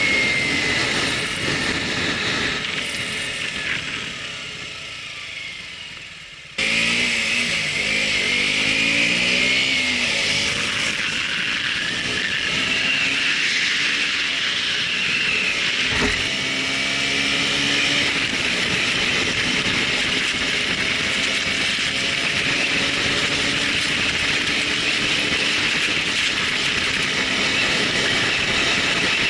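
A Sony HDR-AZ1 action camera's built-in microphone recording a running engine whose pitch rises and falls, buried in a loud, dense hiss with wavering whining tones. The sound fades for a few seconds, then cuts back in abruptly about six and a half seconds in. The uploader is unsure whether this noise is a factory defect or simply how the model records.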